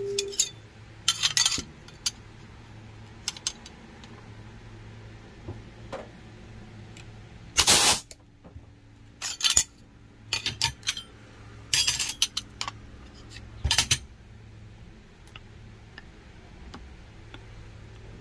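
Small metal parts and tools clinking and clattering in irregular bursts, with one longer clatter about eight seconds in.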